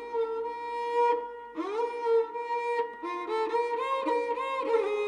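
Background music: a bowed string instrument, violin-like, plays a melody with slides into its notes over a steady held drone, pausing briefly about a second in.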